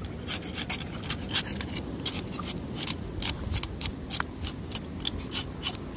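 Knife blade scraping the scales off a fish on a wooden board: quick, irregular scraping clicks, several a second.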